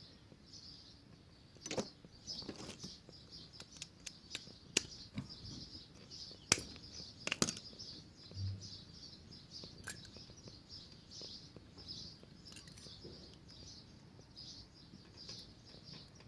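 Scattered sharp metal clicks and taps from hand tools working the pads out of a motorcycle's rear brake caliper, with birds chirping steadily in the background.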